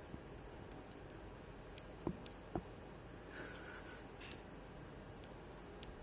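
A budgerigar in a wire cage: a few faint clicks and scratches, with a short soft rustle a little after three seconds, over steady quiet room noise.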